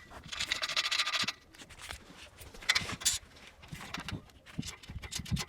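Screws and washers being handled and fitted by hand into a kayak rack's frame: a rattling rustle for about the first second, a second shorter one about three seconds in, and a few soft knocks near the end.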